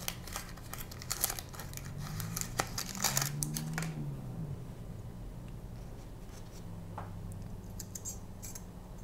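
Paper wrapper of a Rapira double-edge razor blade being unfolded and pulled off by hand: crackly paper crinkling and rustling for the first four seconds or so, then only faint handling ticks once the blade is out.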